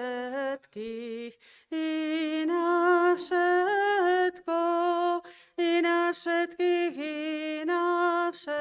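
A single voice chanting a slow Byzantine-rite liturgical response in long held notes, with short pauses between phrases.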